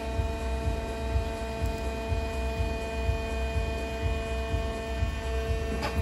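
Addison DB40F CNC pipe bending machine powered up and running, giving a steady hum made of several fixed tones over a low, uneven rumble, with a short click near the end.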